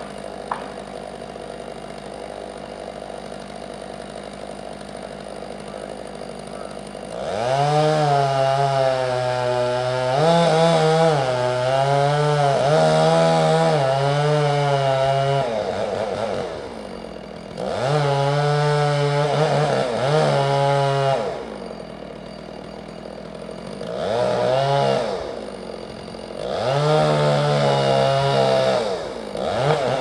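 Stihl chainsaw running at idle for about seven seconds, then opened up to full throttle in four long bursts, its pitch sagging and recovering as it cuts into wood, dropping back to idle between bursts.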